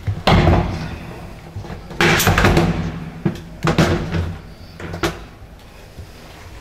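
A 1963 Kone elevator car running down, with a steady low motor hum and four loud clunks in its first five seconds before it settles to the hum.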